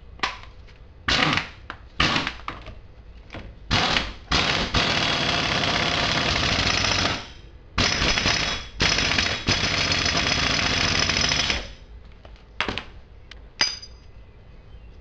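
Impact wrench hammering on the front wheel's axle hub nut, tightening it, in a string of bursts: a few short ones, then two long runs of two to three seconds, then two brief blips near the end.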